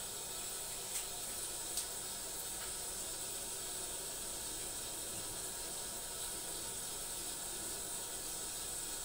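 Bathroom sink tap running steadily, water splashing into the basin over a cat being washed, with two light knocks in the first two seconds.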